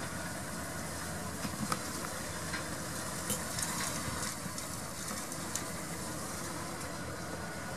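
McCormick MC105 tractor engine running steadily as it pulls a rotary hay implement through the field, with a few light clicks over the first half.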